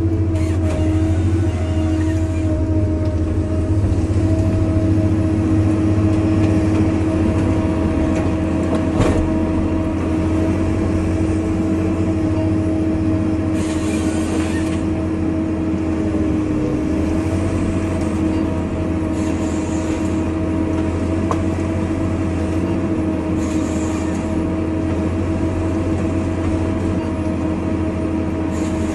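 Ponsse forestry harvester working: a steady diesel engine drone under a constant high hydraulic whine. A few short hissing bursts come in the second half as the harvester head saws through the pine stems.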